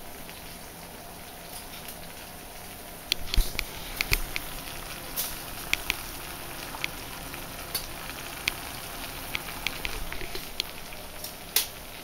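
A sauce dish sizzling in a frying pan: a steady sizzle, with sharp, irregular spitting pops and crackles from about three seconds in.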